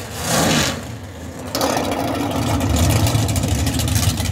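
Top Sportsman drag cars' V8 engines running loud: a short surge of revving at the start, then a sudden step up to a louder, steady engine sound from about a second and a half in.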